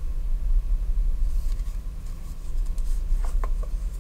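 Steady low hum underneath faint rustling of leather and small handling noises, with a few light clicks about three seconds in, as a small fixed-blade knife is handled and drawn from its molded leather sheath.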